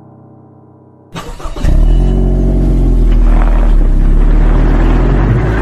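Motor vehicle engine sound effect: it starts with a rattle about a second in and then runs with a loud, steady low rumble. Before that, the end of soft piano music fades out.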